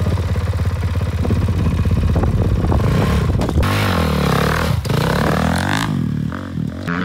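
450cc four-stroke single-cylinder dirt bike engine running at a steady low idle, then revving up as the bike pulls away and passes close by, its note rising and then falling before it fades into the distance.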